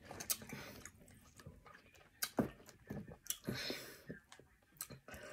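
A metal fork clicking and scraping against plastic food containers a handful of times as fruit is speared and dipped in ranch, with quiet chewing of watermelon and grapes between the clicks.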